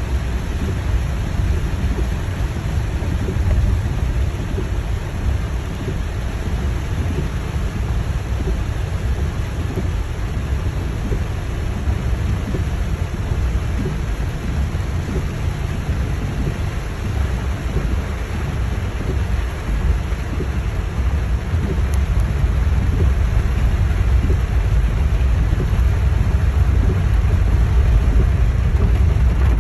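Heavy rain drumming on a car's roof and windshield, heard from inside the cabin as a steady, dense patter over a deep rumble. It grows a little louder about two-thirds of the way through.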